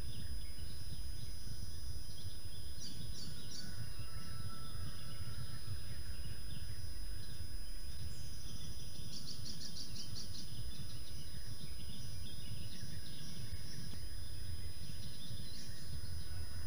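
Steady low outdoor rumble with small birds singing over it: scattered high chirps, and a rapid high trill of about ten notes a second around nine seconds in. A thin, steady high whine runs underneath.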